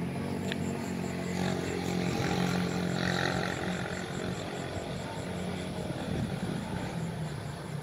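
A steady engine drone of low, even tones that swells slightly two to three seconds in, with a faint high ticking about four times a second.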